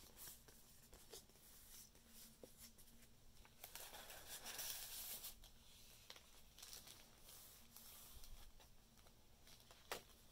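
Faint rustling and sliding of paper as journal pages are turned and an envelope is handled, with a few soft taps and a sharper click near the end.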